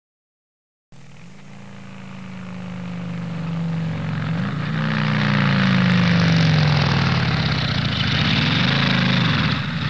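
An engine running, starting about a second in and growing steadily louder, its pitch wavering up and down a few times.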